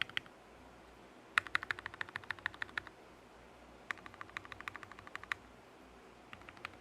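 Mechanical keyboard being typed on: rapid runs of crisp keystroke clicks, about eight to ten a second, in bursts of a second and a half with short pauses between them, a third run starting near the end.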